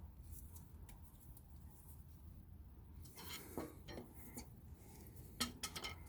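Metal hand tools clinking and clattering against one another, in a cluster of short clinks about three seconds in and another near the end.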